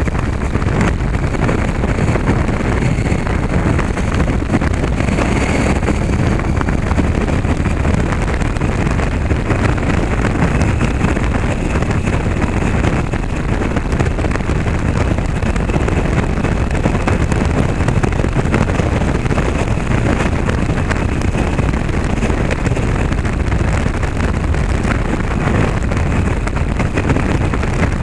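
A motorcycle riding over a cobblestone road, recorded from the bike: the engine runs steadily under a dense rumble from the tyres on the cobbles, with wind on the microphone.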